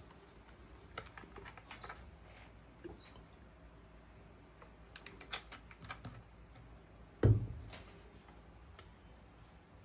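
Scattered light clicks and taps of a brush and ceramic ink dishes being handled while ink is prepared, with one louder knock about seven seconds in.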